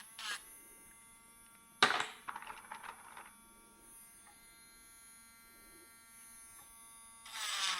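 Small electric sanding machine running with a steady high whine. About two seconds in, it bites into a resin jewelry piece with a sharp grinding burst that lasts a little over a second, and the sanding noise picks up again near the end.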